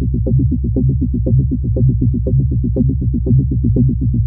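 Muffled electronic party bass: a steady deep synthesizer drone with fast pulses on top, about eight a second, every fourth one stronger. There is no treble at all.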